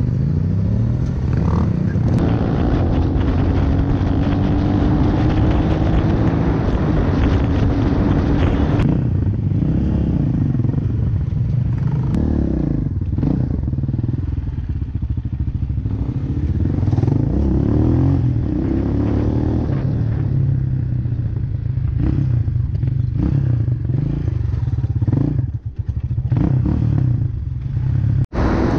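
Off-road motorcycle engine heard from the bike's own onboard camera, running under way. The revs climb slowly over several seconds at first, then rise and fall repeatedly as the rider works the throttle, over a steady rush of noise.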